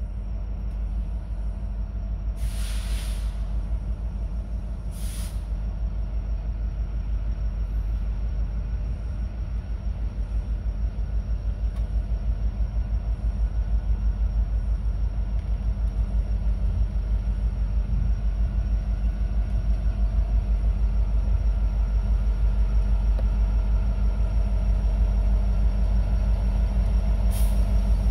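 Diesel-electric freight locomotives working hard to get an empty coal train rolling from a stop, their engines a steady low rumble that grows slowly louder as they draw near. Short hisses of air cut in three times, the first about two seconds in and one near the end.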